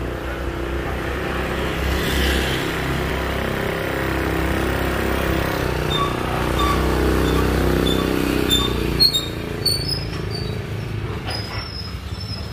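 Motor vehicle engine running on the street, a steady low rumble that drops away about nine seconds in. After that come scattered sharp clicks and a few short high tones.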